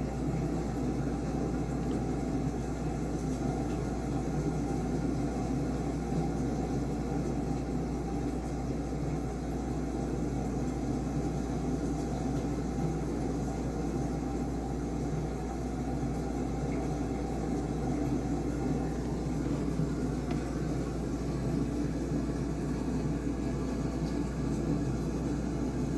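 Steady low rumbling noise with a constant low hum underneath and no distinct events.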